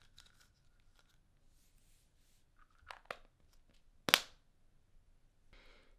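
Small plastic pill bottle being handled: a few soft clicks, then one sharp loud snap about four seconds in, like its cap popping, and a short rattle near the end.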